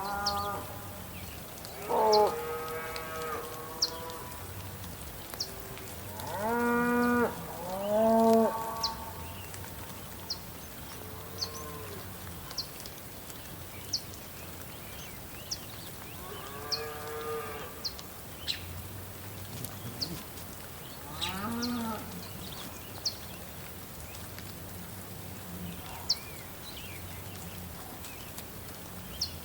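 Cows mooing about six times, long low calls, the loudest early on and near the middle, over a steady soft hiss of rain with scattered short, sharp ticks.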